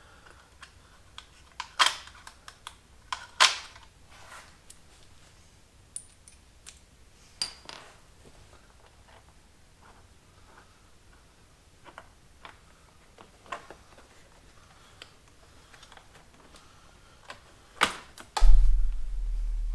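Scattered sharp clicks and knocks of hand tools and parts being handled while the seatbelt pre-tensioner is unbolted with a Torx socket. Near the end a loud low hum starts.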